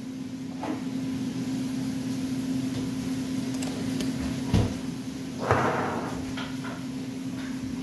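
A few knocks and thumps of kitchen items being handled and set down on the worktop, over a steady low hum. There is a small knock under a second in, a sharp thump about four and a half seconds in, and a heavier thud with a short rattle about a second later.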